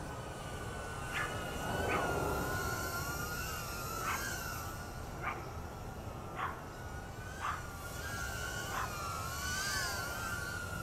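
EMAX Tinyhawk III micro FPV drone in flight: its four small brushless motors and propellers give a high-pitched whine that wavers as the throttle changes, with several short sharp blips about a second apart.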